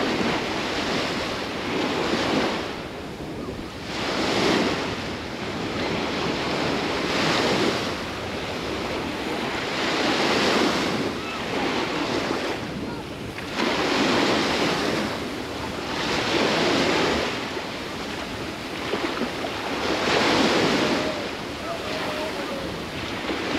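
Sea surf washing onto a sandy shore, the waves swelling and falling back every two to four seconds, with wind rumbling on the microphone.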